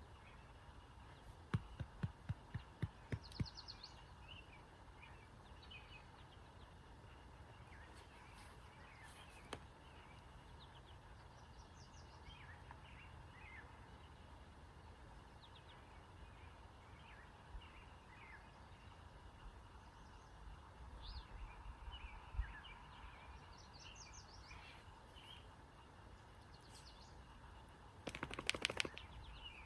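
Birds chirping and calling here and there over a faint, steady outdoor background. A quick run of sharp clicks comes about two seconds in, and a short louder burst of noise comes near the end.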